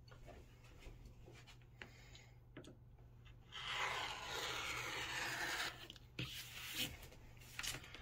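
Rotary cutter slicing through quilt layers along a ruler's edge, trimming the last side square: one scratchy cut of about two seconds, starting a little over three seconds in, followed by a few light knocks.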